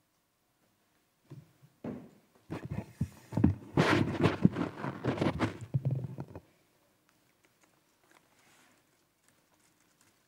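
Handling noise from a lectern's gooseneck microphone being adjusted by hand: a few seconds of close bumps, knocks and rubbing on the mic, starting about a second and a half in and stopping abruptly about six seconds in.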